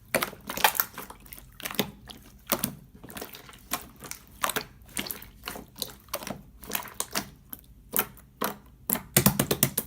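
Irregular sharp taps or clicks, about one or two a second, with a quick run of them near the end.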